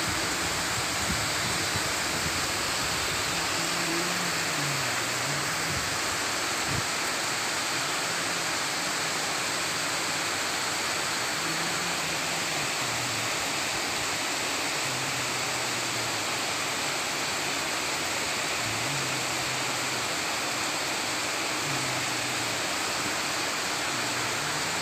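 Heavy rain pouring steadily onto a pond and the surrounding trees: a dense, even hiss of downpour.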